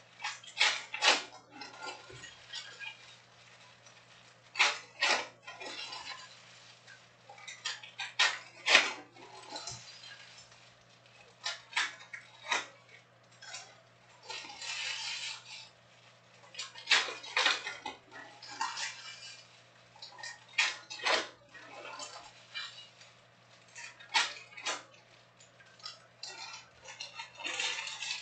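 Panini Prizm trading cards and their foil packs being handled: irregular sharp clicks and snaps as cards are tapped and flicked through, with short stretches of pack wrapper crinkling.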